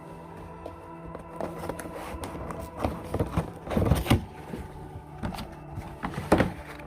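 Air filter being handled in the open plastic airbox of a car engine bay: irregular plastic knocks and rustling, with a loud clatter about four seconds in and another sharp knock after six seconds.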